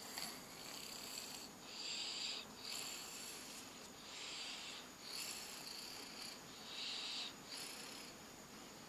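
A sleeper snoring: hissing, slightly whistling breaths in and out, about one every second.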